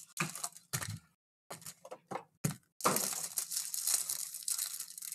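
A few short rustles and clicks as a pack is pulled from a card box, then from about three seconds in the foil wrapper of a 2022 Bowman Chrome card pack crinkling continuously as it is torn open.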